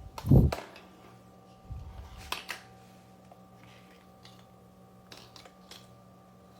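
Handling noises: a heavy low thump just after the start, a couple of sharp clicks about two and a half seconds in, and a few fainter ticks later, over a steady electrical hum.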